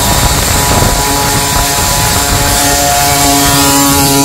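Small two-stroke 49cc petrol engine of a mini dirt bike running under way at a steady pitch, with rough noise from the ride underneath.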